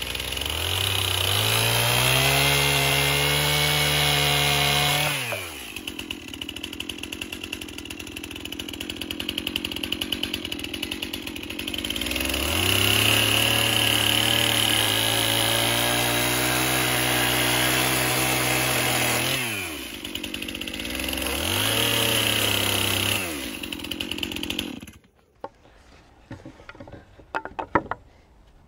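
Mini electric chainsaw cutting wood boards: the motor speeds up with a rising whine, runs, and winds down, three times over. It stops near the end, leaving a few light knocks.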